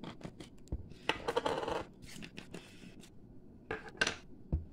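Seasoning shakers being handled over a foil pan of squash blossoms: a string of small clicks and taps as containers are picked up and set down on a wooden counter, with a short rustling scrape about a second in and another near the end.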